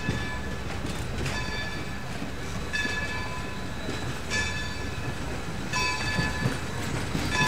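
Vintage steel passenger coaches rolling slowly past on jointed track, with a low rumble and a knock every second or so as the wheels cross the rail joints. Each knock is followed by a short, high-pitched metallic squeal from the running gear.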